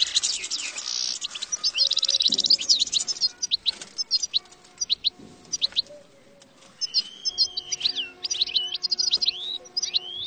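European goldfinch singing: rapid, tinkling twitters and buzzy trilled phrases. The song thins out for a moment a little past the middle, then resumes with a drawn-out slurred note and more trills.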